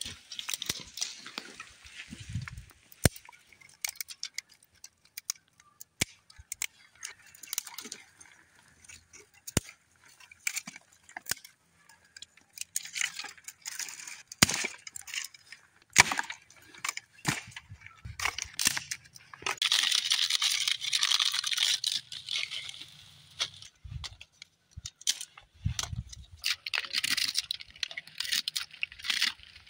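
Sticks and split wood knocking and clattering against the stones of a campfire ring, with rustling and scraping as old ash and twigs are cleared and kindling and shavings are laid. Scattered sharp knocks, and a longer stretch of scraping rustle about twenty seconds in.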